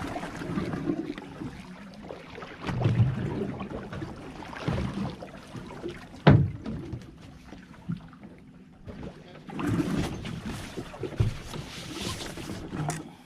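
Wind buffeting the microphone and water moving around a drifting boat, in uneven gusts, with one sharp knock about six seconds in.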